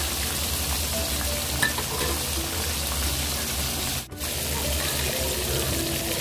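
Pork chops deep-frying in hot oil in a wok: a steady sizzle that drops out briefly about four seconds in.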